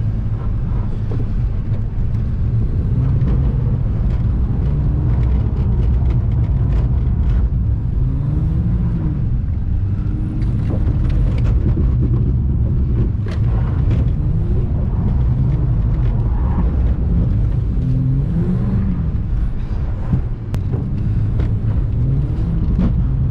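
Ford FG Falcon's engine heard from inside the cabin, its revs rising and falling again and again under throttle as the car is slid through corners, over a steady low drone.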